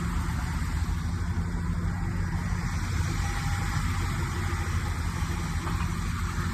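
The engine of a 2019 Blue Bird bus idling steadily, a low, even hum.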